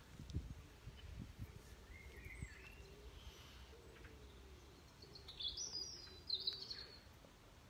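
Birds chirping in the surrounding trees, with the loudest high chirps coming in two short bursts between about five and a half and seven seconds in. Low bumps of the phone being handled in the first second or so.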